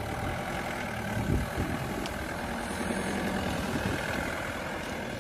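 Mahindra Bolero's diesel engine running steadily at low revs as the SUV crawls through slushy snow.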